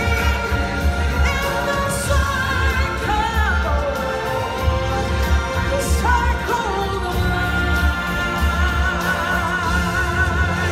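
Live stage singers and band: voices holding long notes with vibrato over sustained chords and a steady low drum beat.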